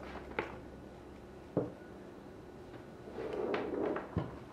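Hands handling cord while tucking strands through a footrope knot: a few soft clicks and knocks, with a brief rustle of cord being drawn through about three seconds in.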